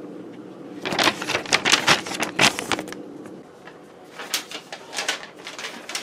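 A sheet of paper being handled, rustling and crinkling in a quick irregular run of crackles from about a second in to about three seconds, with a few more near the end.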